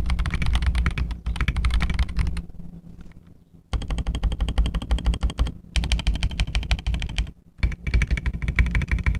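Fast typing on a mechanical keyboard with Gazzew Boba U4T tactile switches and SA profile keycaps: a dense run of deep, thocky keystrokes, with the sound of the desk echoing under it. The typing dies away a little over two seconds in, starts again nearly four seconds in, and stops briefly about seven seconds in.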